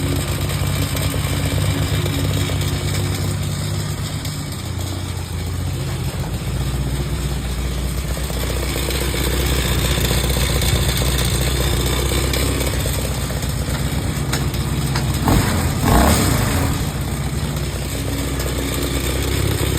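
Go-kart's swapped-in street-bike engine running in gear, driving the wheels through the chain. Its note drops a few seconds in, and two brief louder surges come near the end.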